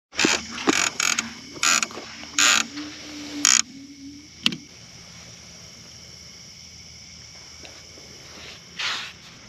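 A baitcasting reel's clicker ratcheting in several short bursts as a fish pulls line off the spool, the sign of a bite, then one sharp click.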